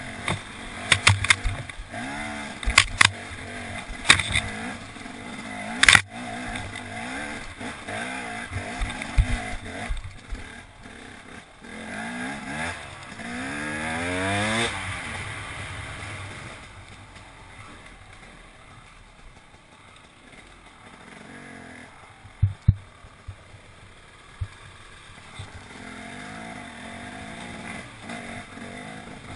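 Enduro motorcycle engine revving up and down as it rides off-road, with several sharp knocks and clatter in the first few seconds. About 14 s in the engine revs up in a long rise, then runs quieter and steadier at lower revs.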